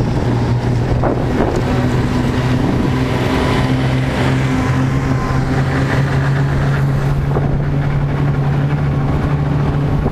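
Snowmobile engine running steadily at speed with wind on the microphone; its drone rises slightly in pitch about halfway through.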